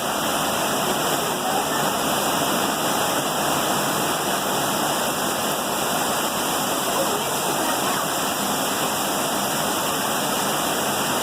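Steady, even rush of water in a heavy downpour.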